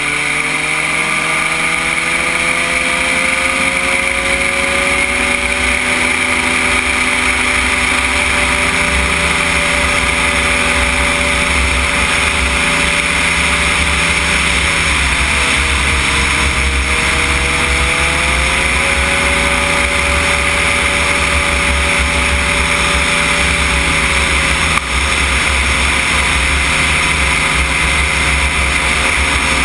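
Cosmos weight-shift microlight trike's engine and propeller at takeoff power, the pitch climbing over the first few seconds as it revs up, dipping briefly about halfway through, then running steady. Wind rumbles on the microphone underneath.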